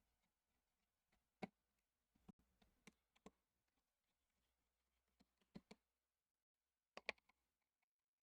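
Faint, light clicks and taps in small scattered clusters: a precision screwdriver and tiny screws being worked out of a smartphone's frame one by one, against near silence.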